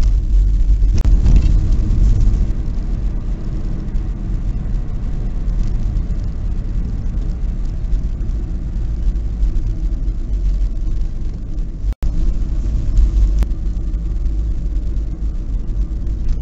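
Car driving on the road, heard from inside the cabin: a steady low rumble of engine and tyres, cutting out for a split second about twelve seconds in.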